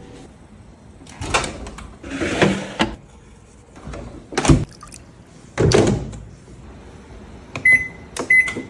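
Kitchen handling noises: a few bumps and rattles, as of a door or cupboard being worked, then two short electronic beeps near the end from a microwave oven's keypad as it is set to run.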